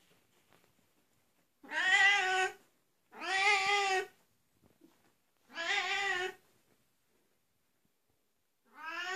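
Oriental cat meowing loudly: three long, drawn-out meows of about a second each with pauses between, and a fourth starting near the end.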